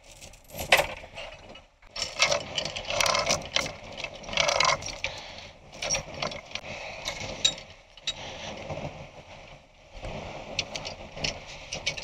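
Small steel chain clinking and rattling in irregular bursts as it is handled and wrapped around a semi truck's axle.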